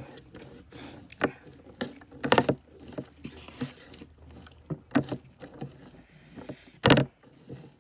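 Fingers mixing rice with dal and curry on a plastic tray: irregular wet squelches and light clicks, with one sharper thump near the end.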